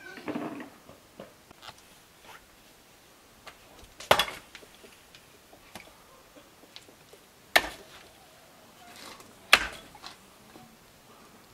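Axe chopping firewood: three sharp strikes, irregularly spaced, with small knocks and clicks of wood between them.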